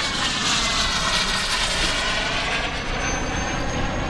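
Turbine engine of a radio-controlled model jet running as the jet lands and rolls out: a steady jet rush with faint falling tones, and a thin high whine that comes in about three seconds in.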